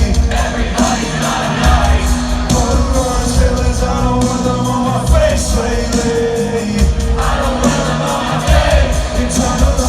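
Live rock music at a concert: a band playing loud with heavy bass and drums under sung vocals, and crowd voices shouting along.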